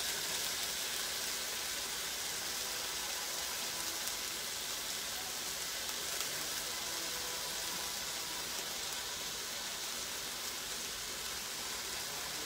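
Chopped cherry tomatoes and onions frying in a stainless steel sauté pan: a steady sizzle.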